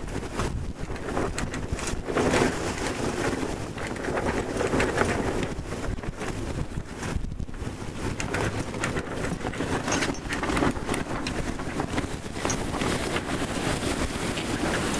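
Wind buffeting the microphone and water rushing past the hull of a C&C 39 sailboat under sail: an uneven, gusting rush with small clicks and splashes throughout.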